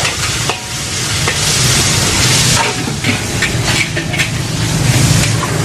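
Food frying in a hot steel wok: a loud sizzle that surges and fades, while a metal spatula stirs and scrapes, striking the wok with repeated sharp clinks in the second half.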